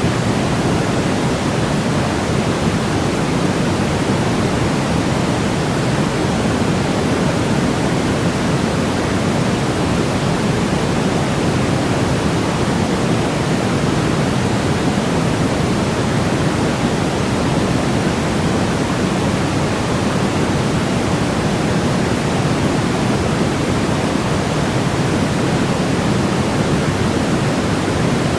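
Steady, unchanging electronic white noise played as a baby sleep aid. It is a deep, even hiss weighted toward the low end, with no breaks or changes.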